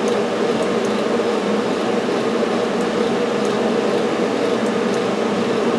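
Steady whir and hum of cooling fans running on a powered-up 3D printer, with a few faint ticks.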